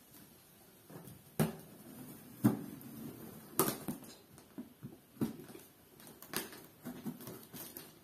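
A knife cutting and scraping at the packing tape on a cardboard box, with a series of irregular sharp scrapes and knocks on the cardboard.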